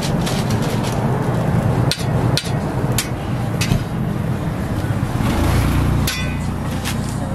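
A metal spatula knocking and scraping on a flat-top griddle as a toast sandwich is lifted off, a series of sharp clicks over a steady low hum.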